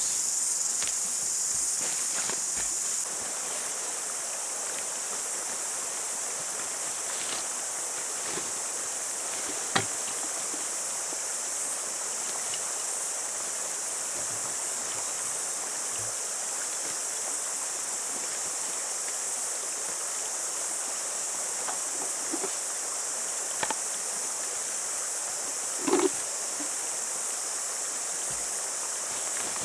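Steady high-pitched insect chorus filling the bush, with a few short knocks and rustles from handling a backpack and gear. There is a sharp click about ten seconds in and a louder knock a few seconds before the end.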